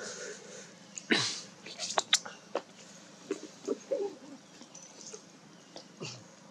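Long-tailed macaques on dry leaf litter: a few short soft calls, a loud noisy burst about a second in, and sharp clicks and leaf rustles around two seconds.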